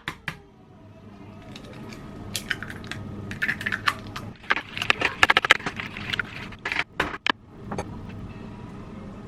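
Kitchen clatter while cooking: a scattered run of sharp clicks and pops, thickest about halfway through, over a steady low hum.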